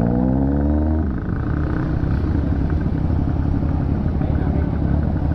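Honda CB150R single-cylinder motorcycle engine revving up in a rising pitch, then easing off about a second in and running steadily at low speed.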